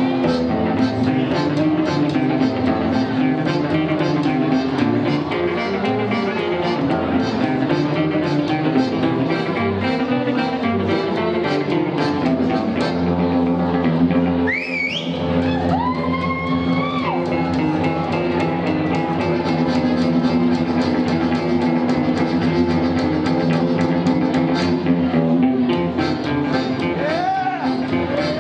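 Live hillbilly boogie band playing an instrumental break on electric archtop guitars, accordion, double bass and drums. About halfway through a high note slides up and is held for about two seconds.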